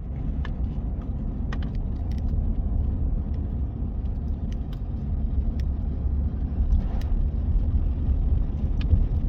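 Car on the move: a steady low rumble of road and engine noise, with a few faint ticks.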